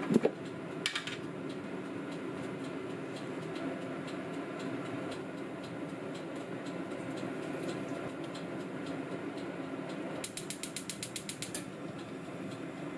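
Gas hob burner's spark igniter clicking rapidly, about nine clicks a second for a second and a half, near the end, as the burner under the pan is lit. At the start an enamel milk pan is set down on the cast-iron grate with a knock. A steady low hum runs underneath.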